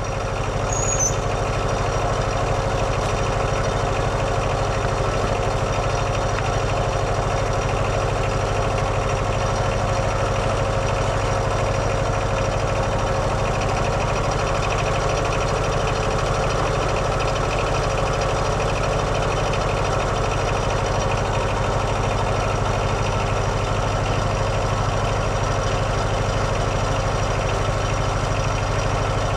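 Kohler 17 hp diesel engine on a Wood-Mizer LT15 sawmill running steadily at an even speed.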